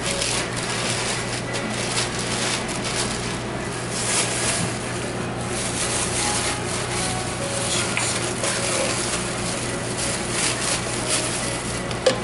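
Paper sandwich wrap and a thin plastic carry-out bag rustling and crinkling as a sandwich is wrapped and bagged, over a steady low hum.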